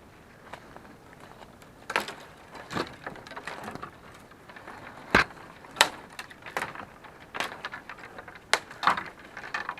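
Footsteps on a forest trail, crunching through leaf litter and twigs, with uneven crunches and sharper cracks about every half second to a second.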